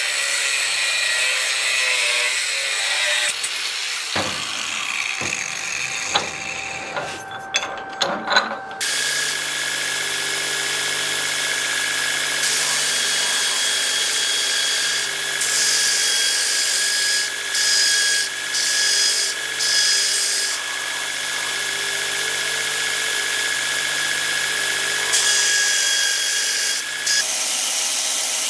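An angle grinder with a cut-off disc cutting a thin steel plate clamped in a vise for the first few seconds. From about nine seconds in, a belt grinder runs with a steady whine while a small steel piece is held against the belt, the grinding noise swelling and easing as it is pressed on and eased off.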